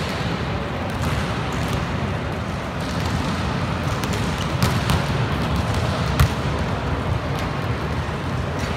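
Reverberant sports-hall noise with the hollow thuds of a volleyball bouncing and hitting the hard court floor between rallies, one sharp smack about six seconds in.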